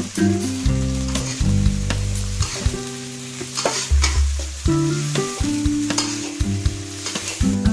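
Food stir-frying in a pan: sizzling, with a spatula scraping and knocking against the pan. Plucked-string music plays underneath.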